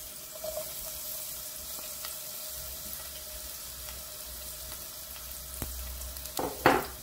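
Sliced onions sizzling steadily in hot oil in a pot. A single click comes a little over halfway, and a short, louder clatter comes near the end.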